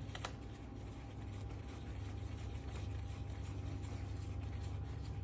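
Steady low hum, with a couple of faint metallic clicks just after the start as the rear axle nut is threaded on by hand.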